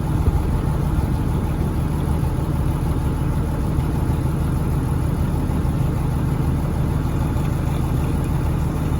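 Fishing boat's engine running steadily at an even speed, a constant low hum.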